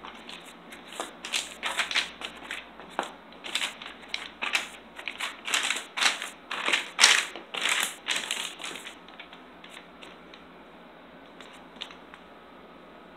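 Irregular crinkling and rustling: a quick run of sharp, crackly rustles, several a second, for about the first nine seconds, then only a few faint ones near the end.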